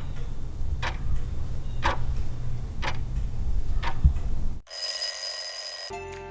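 Clock-ticking timer sound effect, one tick a second over a low steady hum, counting down the time to answer. About four and a half seconds in it gives way to a bright ringing bell tone lasting just over a second, marking time up.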